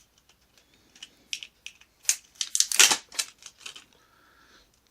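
Headphones and box contents being handled: irregular sharp clicks and short rustles of plastic and paper, densest and loudest about two to three seconds in.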